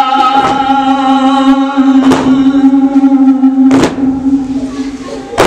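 A man's voice holding one long sung note of a nauha lament into a microphone. The note fades near the end. Sharp slaps land in time about every second and a half: the mourners' matam, hands beating on chests.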